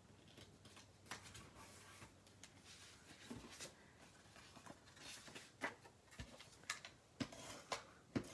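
Faint rustling of paper with scattered light clicks and taps, from small paper squares being handled and glued down.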